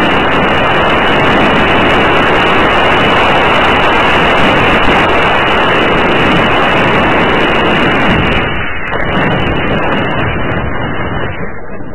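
Loud, rough wind and motor noise on the onboard camera of a Senior Telemaster model airplane coming in to land. It eases off about eight and a half seconds in as the plane touches down and slows on the runway.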